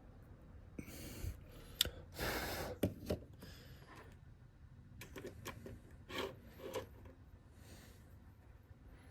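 Small motor parts being worked by hand: a few sharp clicks and taps, with short scraping and rubbing sounds, as replacement carbon brushes for a window motor are handled and fitted.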